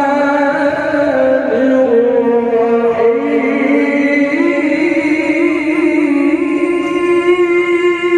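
A man reciting the Quran in the melodic tilawah style through a microphone. He holds long notes and ornaments them with wavering turns. The voice steps up in pitch about three seconds in.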